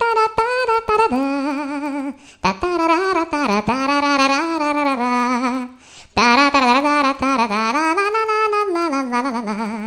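A ringtone melody: one line of notes with a wavering vibrato, in three phrases separated by short breaks about two and six seconds in, ending on a longer held note.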